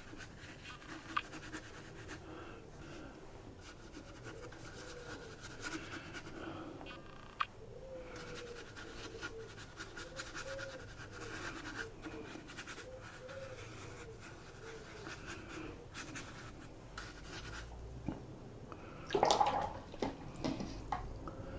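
Wet round watercolour brush swishing and scratching softly across rough watercolour paper while laying a wash, with a short louder noise near the end.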